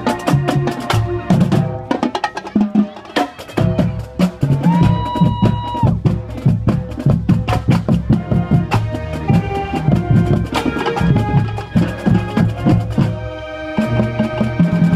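Marching band playing: a drumline beating a fast, steady pattern under held notes from the wind section, with one long high note about five seconds in.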